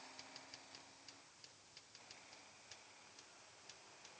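Faint, irregular sharp clicks over a quiet hiss, with a low steady hum that fades out about a second in.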